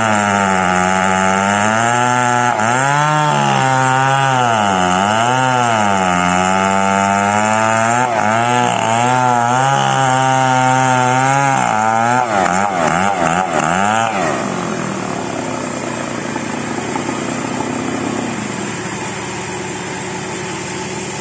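Chainsaw cutting into the end of a huge merbau log, its engine speed repeatedly dipping and rising as the bar bites and clears. About fourteen seconds in it comes off the cut and drops to a quieter, lower running.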